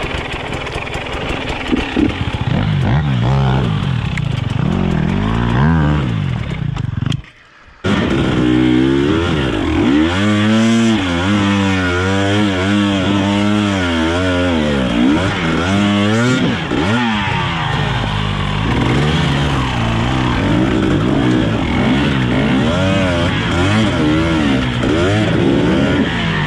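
KTM enduro motorcycle engine revving up and down over and over under load on a steep, rocky climb. The sound cuts out briefly about seven seconds in, then picks up again.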